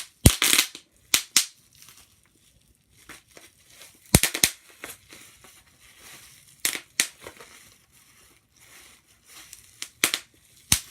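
Slime being squeezed and worked by hand, giving sharp pops and clicks in small groups of one to three, a few seconds apart.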